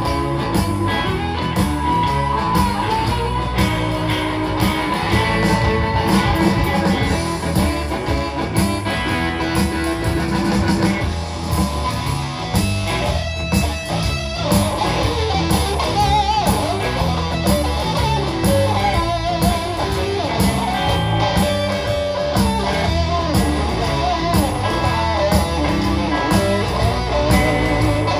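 Live blues band playing an instrumental break: electric guitar, bass guitar and drums, with a harmonica played into a cupped microphone wailing with bent notes over the top.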